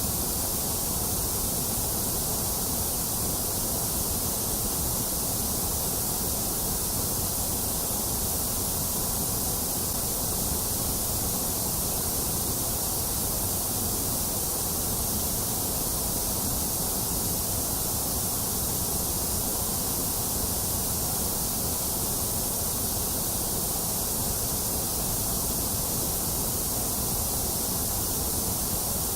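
Steady synthetic white noise for soothing babies: an even, unbroken hiss with a low rumble beneath it, thinner in the middle range, with no change.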